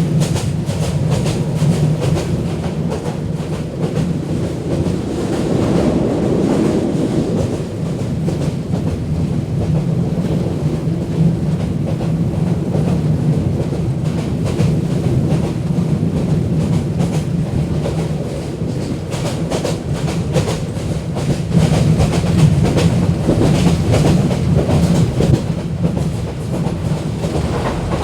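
Bangladeshi local train running, a steady loud rumble with the rapid clatter of wheels over the track, a little louder in the last third.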